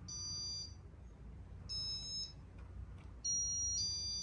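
Electronic beeping from a Casablanca ceiling fan's control as reverse is keyed in: two short high beeps, then a longer beep starting about three seconds in. A faint steady low hum lies underneath.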